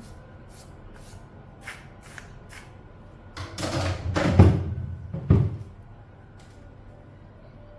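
Mechanical keyboard fitted with PBT dye-sub keycaps being typed on: a few separate keystrokes, then a louder flurry of fast keystrokes in the middle with deep thuds, ending about two seconds from the end.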